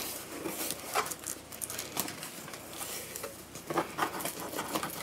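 Hands rummaging in an open cardboard shipping box, rustling and crinkling the plastic-wrapped items inside, with irregular light taps and knocks.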